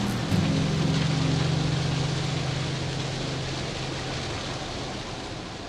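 Steady rushing noise of a firefighting hose stream at a burning fuel fire, under a low steady hum that fades out over the last second or two.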